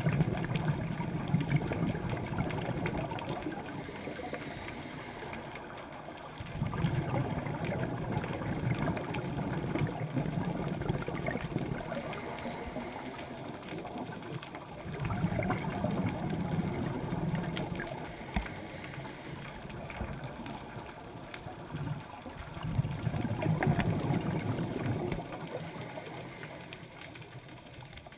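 A scuba diver's exhaled bubbles gurgling out of the regulator underwater in four surges of a few seconds each, with quieter stretches between breaths.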